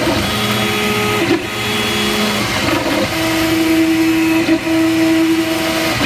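Flashforge Dreamer 3D printer running, its stepper motors whining as the print head moves over the bed laying down PLA. The whine holds steady tones that jump to a new pitch every second or two as the moves change, with brief breaks, over a steady machine whir.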